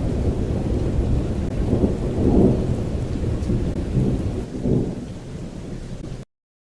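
Thunder rumbling low and continuously, swelling about two seconds in and again near five seconds, then cutting off abruptly shortly before the end.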